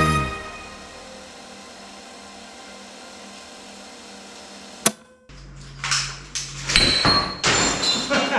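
Background music cuts off, leaving a faint steady hum. A single sharp click comes about five seconds in, then a run of knocks and clattering of hard objects with a brief high ringing note, as things are handled in a rage room.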